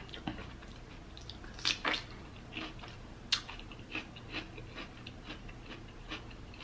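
Mouth sounds of chewing chicken: scattered soft, wet clicks and smacks, the sharpest about three and a half seconds in.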